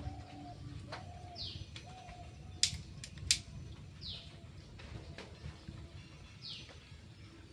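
Birds calling, with three short falling whistled calls and doves cooing. Two sharp clicks about a second apart come from dry sticks being handled at a clay stove.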